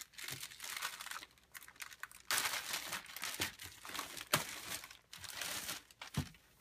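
Clear plastic wrap crinkling as hands pull it off a rack-mount radio repeater, in irregular crackling bursts that are loudest about two and a half seconds in. A couple of short knocks come later.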